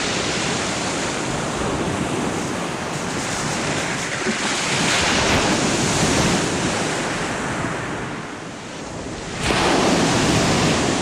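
Sea waves breaking and surging on a shingle beach, swelling louder about halfway through, with wind on the microphone.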